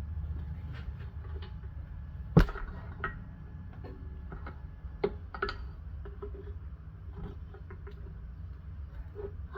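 Scattered clicks and knocks of metal engine parts and tools being handled during a small engine teardown, with one sharp knock about two seconds in, over a steady low hum.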